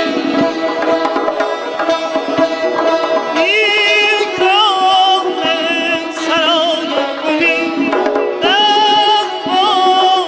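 Persian classical ensemble playing a tasnif on santur and kamancheh. About three and a half seconds in, a male voice enters singing, with quick wavering ornaments on the held notes.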